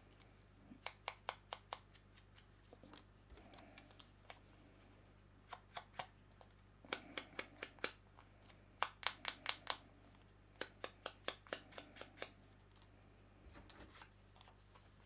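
Sponge dauber dabbing ink onto the edges of paper flower petals: runs of quick short taps, up to about six a second, with pauses between the runs.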